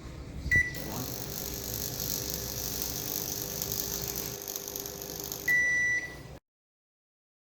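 Microwave oven beeps once and starts running with a steady hum and a dense hissing crackle from an electrical fire burning in its high-voltage section, where the high voltage has found a path to ground. Near the end it gives a longer beep, and the sound stops abruptly.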